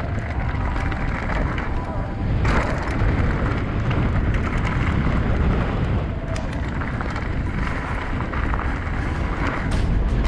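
Mountain bike riding down a rocky dirt trail: wind buffeting on the camera's microphone makes a loud, steady rumble, with crunching tyres and sharp clicks and rattles as the bike rolls over stones.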